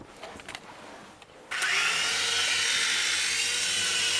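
Venom Micro Troop Transporter, a tandem-rotor micro RC helicopter, spinning up its rotors. After a few faint clicks, the motors start suddenly about a second and a half in with a rising whine. It settles into a steady high whine as the helicopter lifts off.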